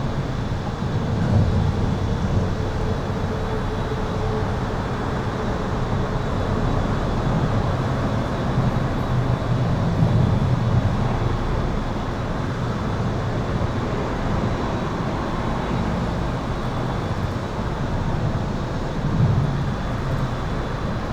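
Highway traffic heard from under an overpass: a continuous low rumble of passing vehicles that swells every few seconds as heavier ones go by. A faint, steady high-pitched tone runs through it.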